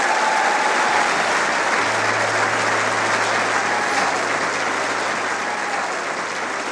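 Studio audience applauding loudly and steadily.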